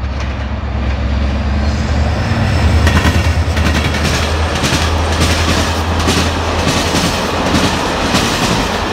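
Class 333 diesel-electric locomotive passing close, its engine a deep steady drone that is loudest about three seconds in. The container wagons follow, clattering rhythmically over the rail joints.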